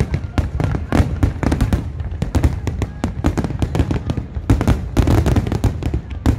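Fireworks display: a dense, continuous barrage of aerial shell bursts, several sharp bangs a second over a steady deep rumble.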